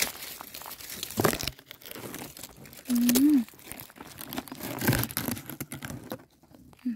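Dry leaves and loose gravel crackling and rustling under a hand working close to the ground around a small mushroom. A short hummed "mm" from a voice comes about three seconds in.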